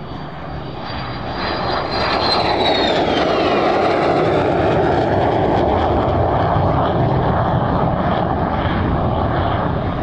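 MiG-17F's VK-1F afterburning turbojet on a low, fast pass: a high whine that drops in pitch two to four seconds in, under a loud rumble that builds and holds, with the afterburner lit as it pulls up and climbs away.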